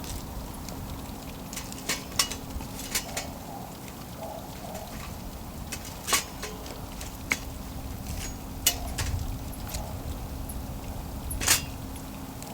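Wood campfire crackling: sharp irregular pops, a few louder ones, over a faint steady hum.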